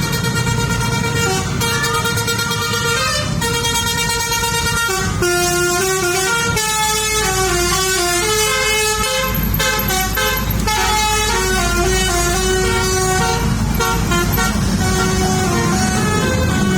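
A bus's 'telolet' musical horn playing a tune: a string of held notes that step up and down in pitch, over a low engine rumble.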